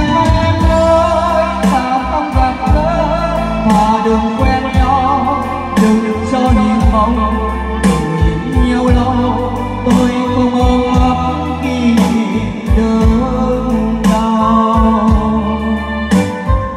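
A Vietnamese song's backing music, a wavering keyboard melody over drums and a heavy bass line, played loud through a line-array stage sound system.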